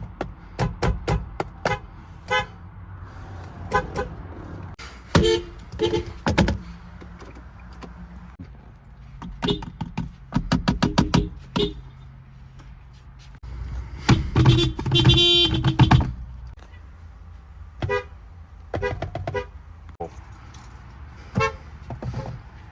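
Car horns from several different cars honking one after another: short single toots and quick strings of rapid beeps, with a longer, louder horn blast about two-thirds of the way through.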